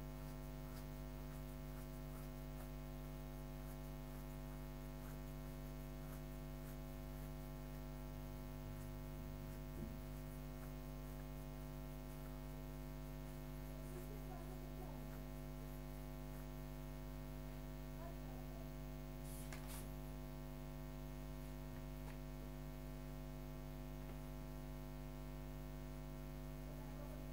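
Steady, low-level electrical hum: an unchanging buzz made of a stack of even tones, with one brief click about two-thirds of the way through.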